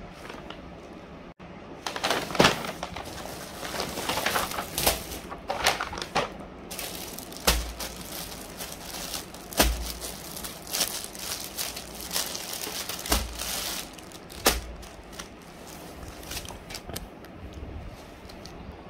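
Paper shopping bag and clear plastic shirt packaging rustling and crinkling as they are handled, with sharp crackles and a few soft thumps against the table; quieter for the last few seconds.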